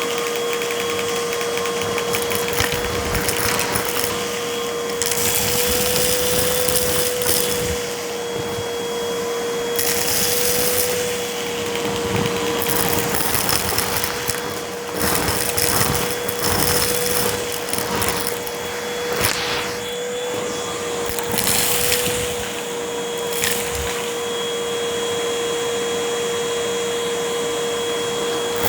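Vacuum cleaner running with a steady motor whine, broken by repeated bursts of crunching as it sucks up crunchy debris.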